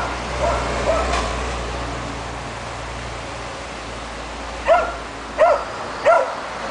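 German Shepherd puppy yapping: a few soft yaps at the start, then three loud, short, high yaps about two-thirds of a second apart near the end.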